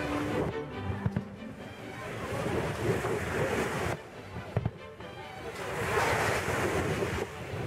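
Fireworks display: a rushing, crackling wash of noise that swells and fades twice, with two sharp bangs, one about a second in and one about halfway through.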